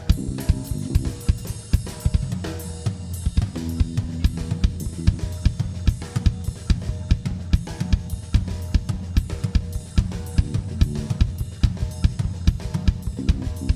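Live band playing, led by a drum kit: kick, snare, hi-hat and cymbals in a steady, busy beat over changing low held notes.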